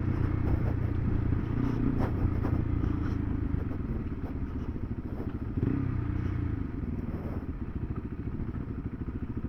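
KTM 390 Adventure's single-cylinder engine running under way on a dirt road, with light clatter and knocks from the bike over the rough surface. The engine note rises briefly about five and a half seconds in, then drops lower as the bike eases off.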